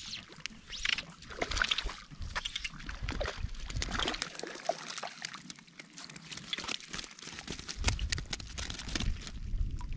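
A hooked brook trout splashing and thrashing at the lake surface as it is played in, then scooped into a landing net, in a run of irregular watery splashes.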